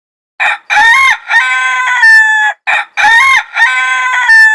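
Rooster crowing loudly twice, a full cock-a-doodle-doo each time. Each crow ends in a long drawn-out note that falls slightly.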